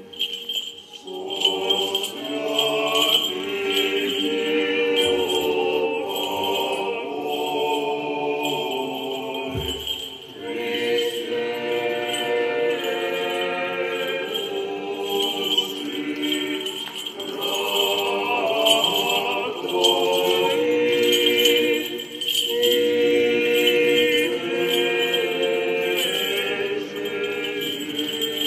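Orthodox church choir singing memorial-service chant, unaccompanied, in long phrases with brief breaks about ten seconds and sixteen seconds in. Near the end the small bells of a swinging censer jingle faintly.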